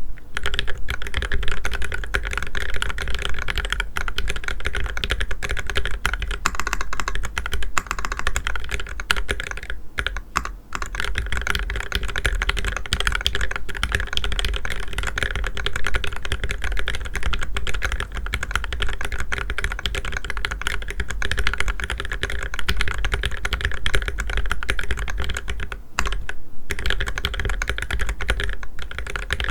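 Custom mechanical keyboard with lubed Gateron Black Ink V2 linear switches, a copper plate, a stacked acrylic case and GMK keycaps, typed on fast and continuously. There are two short pauses, about a third of the way in and near the end.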